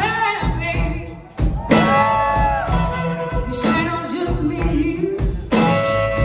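Live blues-rock band with horns playing a slow blues number, with a woman singing lead in long, bending notes. The band drops back briefly about a second in, then comes back in full.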